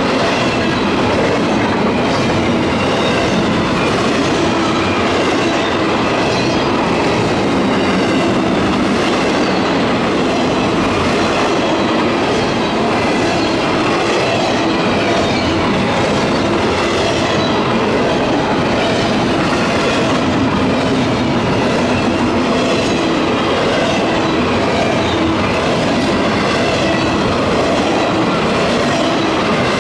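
Double-stack intermodal freight train's loaded well cars rolling steadily past on steel wheels: a loud, even, unbroken noise of wheels on rail that never lets up.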